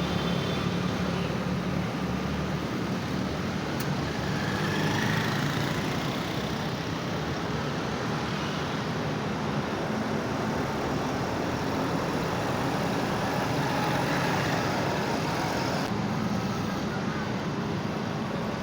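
Steady road traffic noise: a continuous wash of passing vehicles and engines, with no single event standing out.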